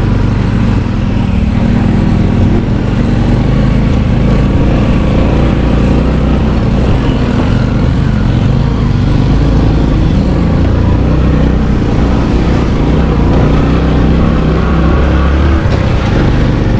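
A vehicle's engine running steadily with a low drone that weakens about a second before the end.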